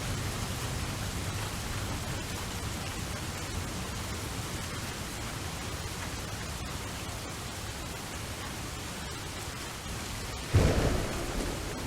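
Steady rain falling, with a sudden clap of thunder near the end that rumbles and dies away over about a second.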